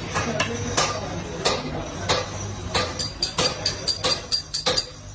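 Repeated sharp metallic strikes, each with a bright ringing, spaced out at first and then quicker, about four a second, from about three seconds in, over a steady low hum.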